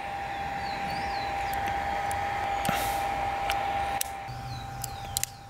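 Small metallic clicks of cartridges being slipped into a revolver's cylinder, then a sharper click about four seconds in as the cylinder is swung shut. A steady thin tone runs underneath.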